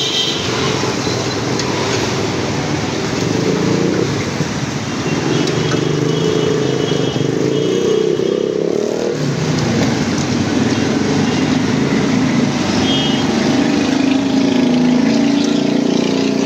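Busy street traffic, with motorbike and car engines droning past, over the steady sizzle of egg mal pua deep-frying in a large wok of oil. A few brief higher tones, like distant horns, come through a few seconds in and again near the end.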